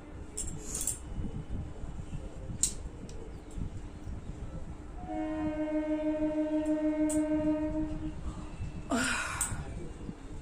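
A horn sounds one steady blast of about three seconds, starting about halfway through, followed about a second later by a short breathy rush of noise.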